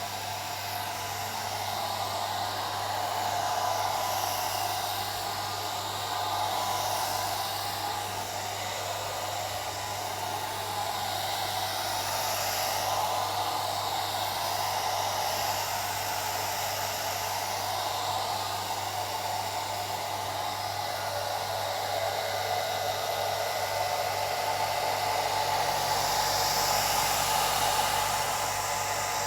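An old hair dryer running continuously: a steady rush of air over a constant low hum, swelling and easing slightly every few seconds.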